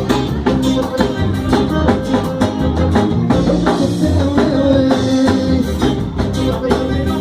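A band plays an instrumental passage of a sertanejo song between vocal lines, with a drum kit keeping a steady beat under sustained pitched instruments.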